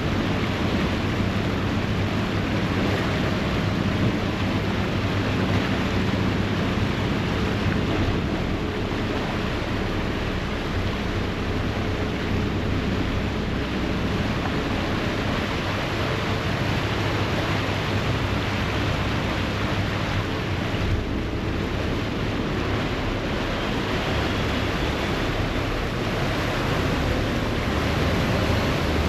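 Sydney harbour ferry under way: its engines run with a steady low drone while the propeller wash churns the water in a constant rushing hiss, with some wind on the microphone.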